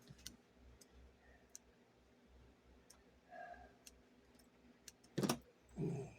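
Scattered faint clicks and small handling noises, then a sharp louder knock about five seconds in and a short duller thud-like sound just after it.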